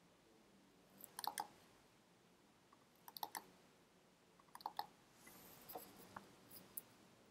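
Faint clicking of a computer mouse and keyboard, in a few short clusters of clicks.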